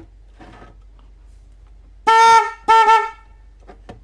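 12-volt snail-type electric car horn, the low-tone unit, sounding two short honks about half a second apart. The second honk briefly breaks up in the middle.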